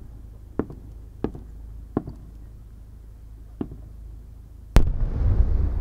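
A few sharp, distant firework pops, then about five seconds in a single very loud, deep boom from a giant three-shaku (sanshakudama, about 90 cm) firework shell, followed by a long low rumbling echo.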